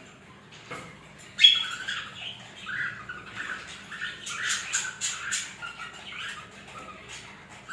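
Lovebirds chirping and squawking in many short, high calls, loudest about a second and a half in, with a run of short sharp sounds around four to five seconds in.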